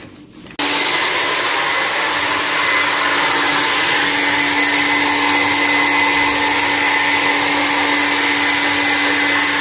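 Handheld hair dryer switched on about half a second in and blowing steadily, an even rush of air with a constant motor hum.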